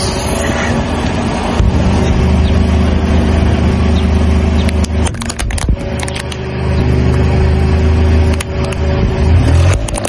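Car engine running steadily at low revs as the tyre rolls slowly over a toy figure on asphalt, with a cluster of sharp cracks and crackles about halfway through as the toy is crushed, and a few more near the end.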